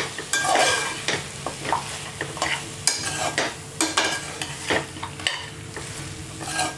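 Goat trotter pieces being stirred into a sizzling onion-tomato masala in a steel pot: a ladle scrapes and turns the meat in repeated strokes, about two a second, over a steady frying sizzle.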